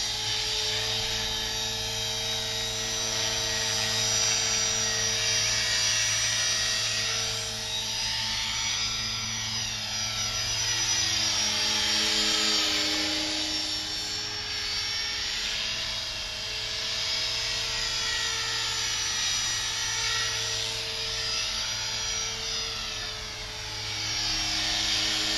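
Align T-Rex 450 Pro electric RC helicopter in flight: the steady whine of its motor and gears with the rotor buzz, swelling and fading as it flies around.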